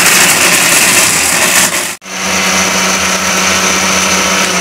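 Miyako 800-watt food processor's motor running its stainless-steel dry-grinding jar, grinding broken dried turmeric to powder: a loud, steady whir. It breaks off for an instant about two seconds in and then carries on.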